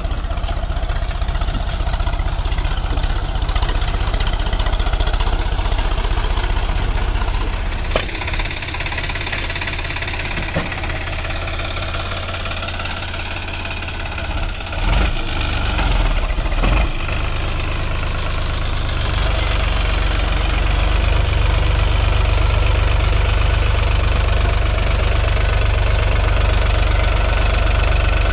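Sonalika DI-35 RX tractor's diesel engine running while the tractor, with a loaded trailer, works to climb out of deep sand. A few short knocks come in the middle, and the engine gets louder for the last third.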